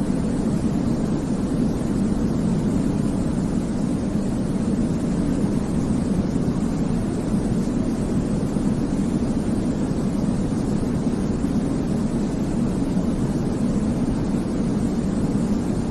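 Steady, unbroken sleep white noise for babies, weighted heavily toward the low end: a deep, even rumbling hush with little hiss on top.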